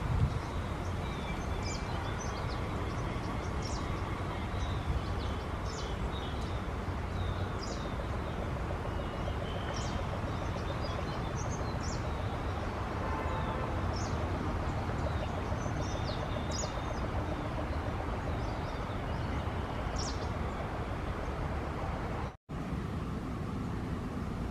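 Outdoor ambience: a steady low rush of background noise with scattered short, high chirps of small birds, several every few seconds. The sound cuts out for a moment near the end.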